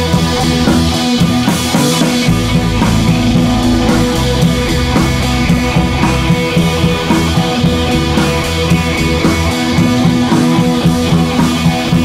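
Background rock music with drums and guitar and a steady beat.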